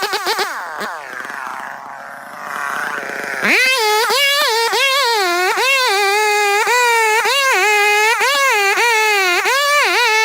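Chainsaw engine running at high revs with a high-pitched buzz, its pitch pulsing up and down. About a second in, the pitch and level drop for a couple of seconds before it revs back up strongly.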